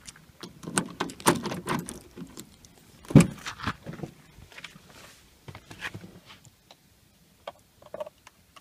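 A car door being opened and someone getting in: handle and latch clicks and keys jangling, with a heavy thump about three seconds in, then a few lighter clicks. The engine is not yet running.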